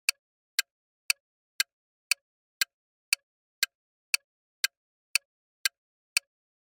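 Quiz countdown timer sound effect: a clock ticking evenly, about two sharp ticks a second with silence between, running down the time given to answer.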